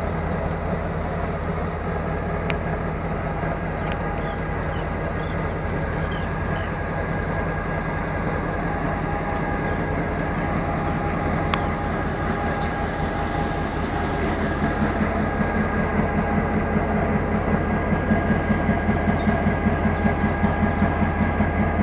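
Diesel engine of an M6 class locomotive idling steadily. In the last third a rhythmic beat of about three pulses a second builds up and grows louder.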